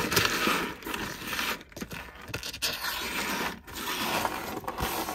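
A pile of small costume jewelry pieces, little pearls among them, being sifted and pushed around on a surface: scraping and rattling with light clicks. It is loudest in the first second and a half, then comes in patches with short pauses.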